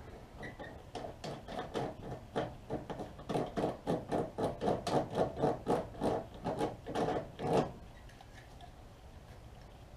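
A hand tool working at the door's sheet metal in a quick run of rasping strokes, about three a second, that grow louder and stop abruptly after about seven and a half seconds.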